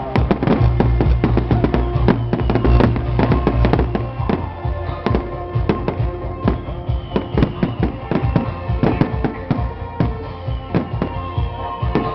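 Fireworks display going off in many irregular bangs and crackles, mixed with loud music that has a heavy bass.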